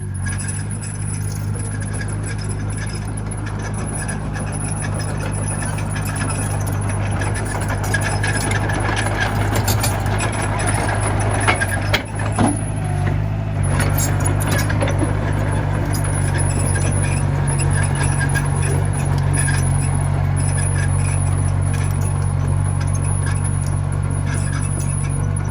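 Komatsu mini bulldozer's diesel engine running steadily under work, with scattered metallic knocks and rattles from the machine, the sharpest about twelve seconds in.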